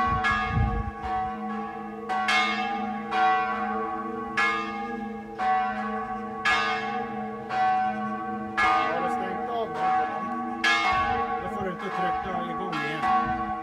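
Two church bells swinging and ringing together in a test ring: a great bell recast in 1766 and a small bell cast in 1665, tuned G and G-sharp. Strikes come about once a second, alternating and overlapping, each leaving a long ring.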